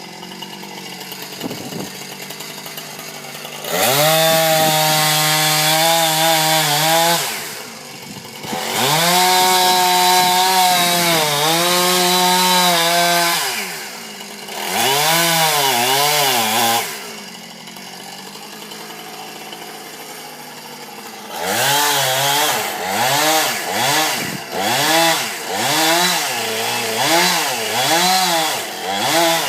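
Chainsaw idling, then revved up to full throttle in three long bursts of a few seconds each, dropping back to idle in between. Near the end it is blipped up and down in a quick run of short revs, about one a second.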